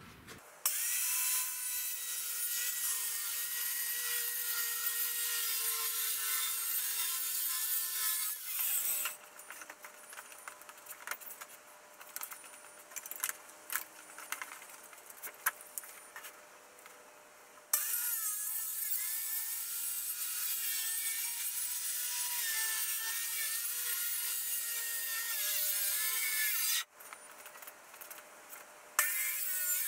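Handheld electric circular saw running and cutting through a thin board sheet, with a steady motor whine. It cuts for about eight seconds, stops for several seconds of clicks and handling while the saw is repositioned, cuts again for about nine seconds, then starts once more near the end.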